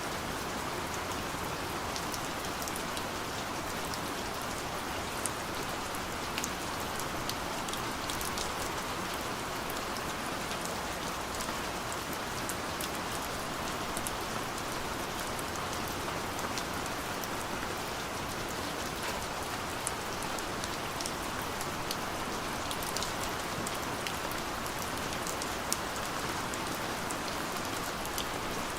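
Steady light rain falling, with scattered individual drops pattering on a surface. No thunder.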